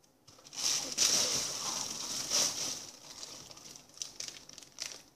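Paper and plastic crinkling and rustling as a handmade paper squishy is handled and worked. The rustling is thick at first, then thins to scattered crackles.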